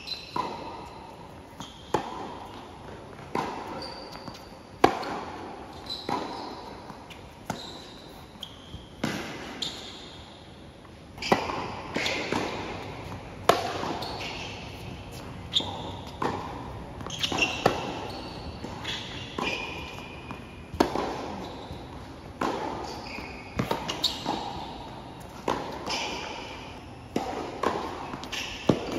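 Tennis rally play: sharp racquet strikes on the ball and ball bounces on the hard court, a hit or bounce roughly every second or so, with short high squeaks of sneakers on the court between shots.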